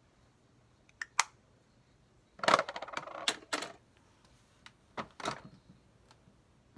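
Small hard makeup containers being handled: two sharp clicks about a second in, a rattling clatter lasting about a second around the middle, then a few more clicks near five seconds.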